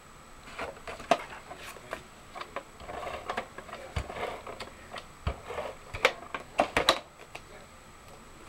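Scotch ATG adhesive tape gun being run across the back of a paper panel, its mechanism rattling and clicking as it lays down adhesive, with paper rustling as the pieces are handled; a few sharp clicks come near the end.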